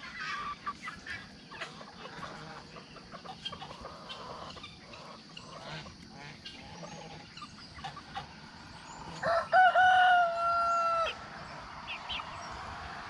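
Chickens clucking with scattered short calls, then a rooster crows once about nine seconds in, a held call of about two seconds and the loudest sound here.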